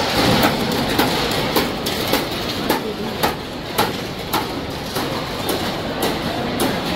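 Stainless steel thali plates clattering and clanking as they are handled and set down on steel tables, many irregular knocks over steady crowd chatter.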